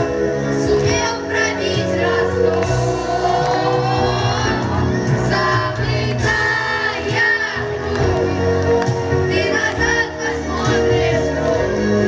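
Children singing a song into microphones over amplified backing music.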